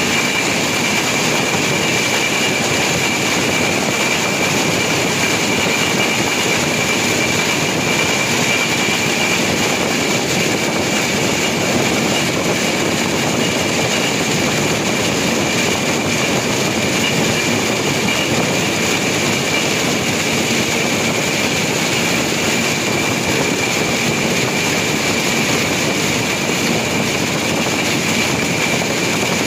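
Open motorised rail inspection car running along the track: a steady drone of its engine and wheels on the rails, with a constant high whine above it.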